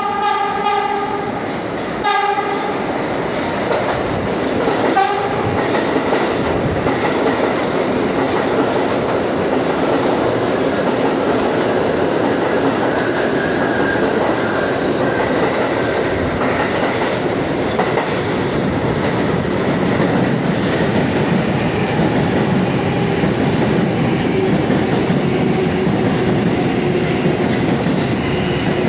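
New York City subway train horn sounding three short blasts over the first few seconds, then the steady loud rumble and wheel clatter of subway trains running through the station without stopping.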